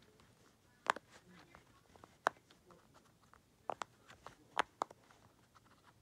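Bubbles of a rainbow crab-shaped silicone pop-it fidget toy pressed in by a finger, giving a handful of short, sharp pops at irregular intervals.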